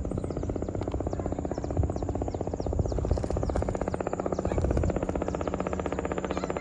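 Helicopter arriving, its rotor blades beating in a rapid, even chop over a low engine rumble.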